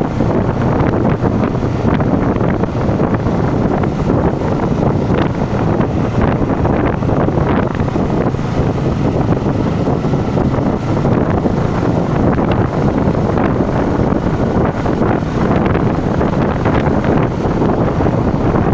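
Steady, loud wind rush buffeting the microphone of a motorcycle rider moving at speed.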